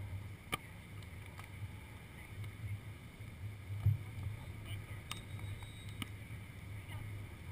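Wind rumbling on the microphone of a camera set on the sand, gusting harder about four seconds in, with a few faint sharp taps.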